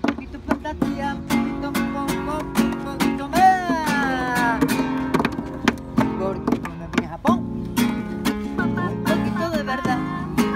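Two acoustic guitars, a nylon-string flamenco guitar and a small acoustic, strumming chords in a flamenco jam. A voice sings a sliding, wavering line over them about three to five seconds in and again near the end.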